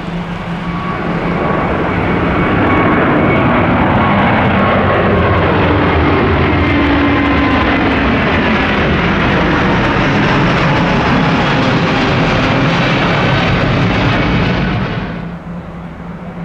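Jet engines of an Airbus A350 (Rolls-Royce Trent XWB turbofans) passing close by: loud jet noise swells over the first couple of seconds, holds steady with faint tones sliding downward, then drops away sharply near the end.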